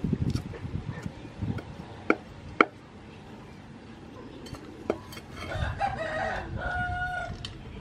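A cleaver knocks on a thick wooden chopping board: a few dull chops, then sharp clacks, two close together about two seconds in and another near five seconds. Near the end a rooster crows once.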